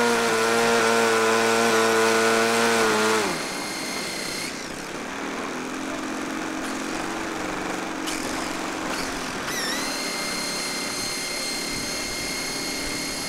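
Laser 160 inline twin four-stroke glow engine of a large-scale model P-51 Mustang running at a steady high throttle. About three seconds in its note dips slightly and the sound drops away sharply, leaving a fainter engine hum and a thin, steady high whine.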